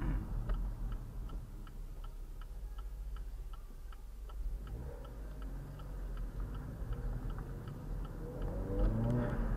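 A car's turn-signal indicator clicking steadily, about two and a half ticks a second, over the low idle of a Camaro 2.0T's turbocharged four-cylinder running a catless downpipe with the exhaust cutout closed. Near the end the engine note rises as the car pulls away.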